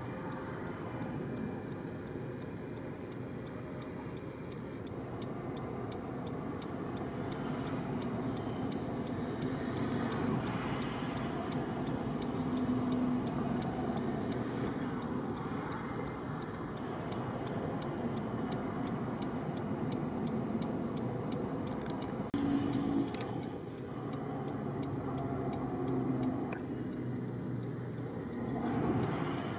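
Steady road noise from traffic on the highway, swelling a few times as vehicles pass, with a faint regular ticking over it.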